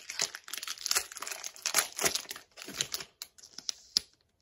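Wrapper of a Topps Update baseball card pack crinkling and tearing as it is opened, a dense run of sharp crackles that thins out near the end, with one sharp click about four seconds in.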